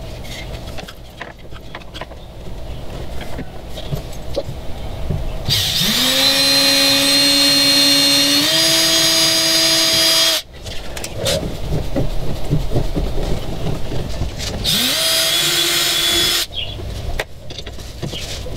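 Cordless drill running twice. The first run lasts about five seconds: it spins up with a rising whine, steps higher partway and stops abruptly. The second run, under two seconds, comes near the end, with light clicks of handling in between.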